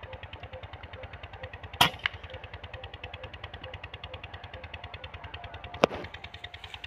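Artemis P10 PCP air gun fired once, about two seconds in: a sharp crack, followed a quarter second later by a fainter smack, likely the pellet hitting the collared dove. Another sharp click comes near the end, and a small engine idles with a steady rapid beat throughout.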